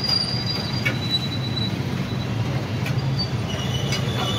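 Steady outdoor street noise: a low engine-like hum with thin high squealing tones over it that fade and come back near the end, and a few faint clicks.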